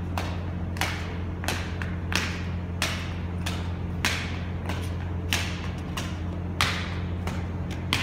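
Footsteps of a hurdler's trainers striking a concrete floor as he steps over a row of hurdles, in an even rhythm of about three steps every two seconds, each step ringing briefly. A steady low hum runs underneath.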